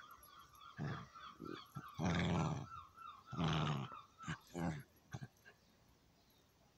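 A chihuahua and an older dog play-fighting, with a string of play growls. The two longest and loudest growls come about two and three and a half seconds in, and the growling stops about five seconds in.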